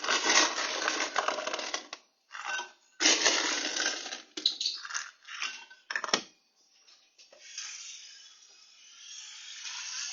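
Ice cubes clattering and rattling in a container in uneven bursts, with a sharp click about six seconds in, then a softer steady hiss.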